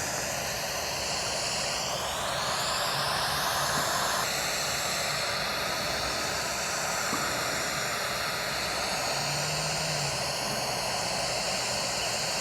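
Steady jet-engine roar: a rushing noise with a high whine that glides upward about two seconds in and changes abruptly about four seconds in.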